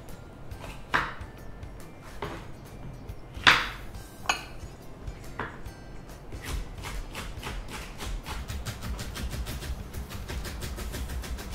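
Chef's knife cutting a green bell pepper on a wooden chopping board. A few separate knocks of the blade on the board come first, then from about six seconds in quick, even chopping at about five strokes a second as the pepper is cut into thin julienne strips.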